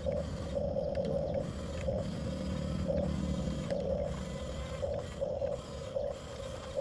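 Gear motors of a 1/14-scale Huina RC bulldozer whining in short, uneven bursts as it is driven, over a steady low rumble.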